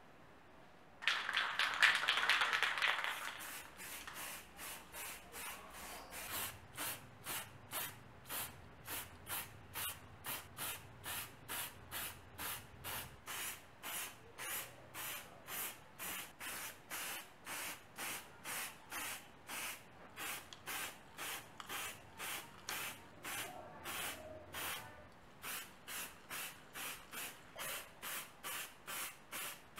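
Aerosol spray-paint can spraying in short, quick bursts, about two a second, with a longer, louder spray about a second in.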